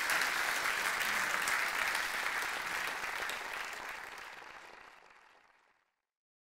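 Audience applauding, a dense patter of clapping that fades out from about three seconds in and is gone into silence shortly before the end.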